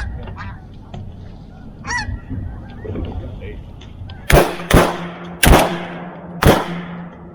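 Geese honking, then four shotgun shots in quick succession, the loudest sounds, each trailing off after the blast.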